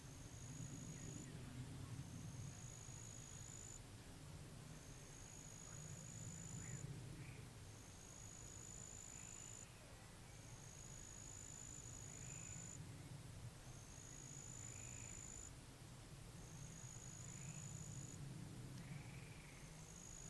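Faint pondside ambience. A high buzzing insect trill, about a second long, repeats every two seconds or so, over scattered short chirping calls and a low rumble of wind that swells and fades.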